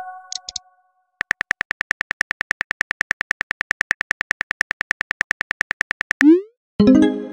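Simulated phone-keyboard typing sound: rapid, even key clicks, about eight a second, for about five seconds while a text message is typed. Near the end comes a short rising whoosh as the message is sent, then a brief chime.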